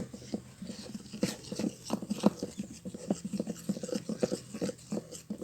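Glue slime mixture being stirred in a small pot: a quick, irregular run of wet squelches and clicks, several a second.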